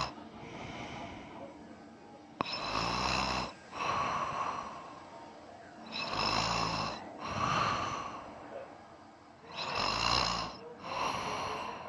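A man snoring in his sleep: three snoring breaths about four seconds apart, each a low rattling snore followed by a shorter, breathier second half.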